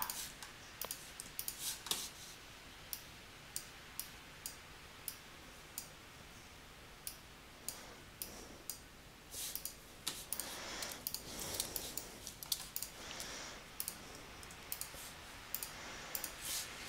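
Faint clicking of a computer's mouse and keys: single sharp clicks at irregular intervals, roughly one every half second to second. There are a few softer, longer rustling noises about ten seconds in.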